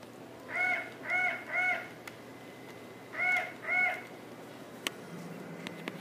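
Electronic toy macaw squawking: three identical caws in quick succession, then after a short pause two more.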